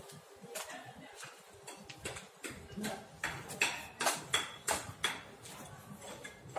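Footsteps on a concrete alley, a run of sharp clicks that comes about two to three a second in the middle stretch, as the person carrying the camera walks along.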